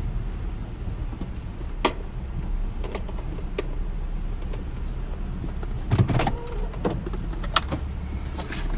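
Car cabin with the engine idling as a steady low hum, and scattered sharp clicks and small knocks from things being handled inside the car, the loudest about six seconds in.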